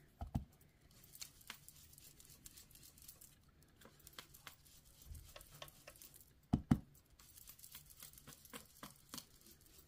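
Blending brush being dabbed and swirled through a plastic mask onto cardstock after inking on an ink pad: a run of soft light taps and brushing. A louder knock comes just after the start and two more close together about two-thirds through.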